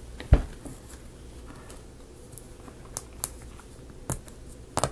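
Thin laser-cut plywood model parts being handled and fitted together: a low thump about a third of a second in, then a few scattered light clicks and taps, the most of them near the end.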